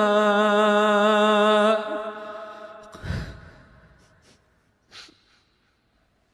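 A male Quran reciter's voice holding the long, wavering final note of a verse, which ends about two seconds in and trails off. About a second later comes a loud sobbing breath into the microphone, then a faint sniff, as the reciter weeps.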